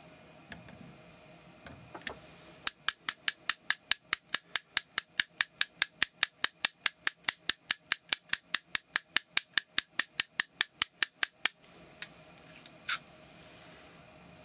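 Brass hair stacker tapped on the tying bench, a quick steady run of sharp knocks about five a second lasting some nine seconds, evening the tips of a clump of hair for the fly's wing. A few single lighter clicks come before and after the run.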